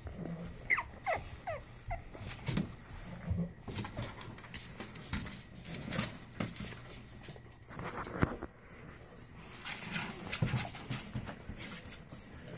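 Pug puppies whimpering, with a quick run of short high whines about a second in. Scattered clicks and scrapes come from small paws on the plastic pool and the bedding.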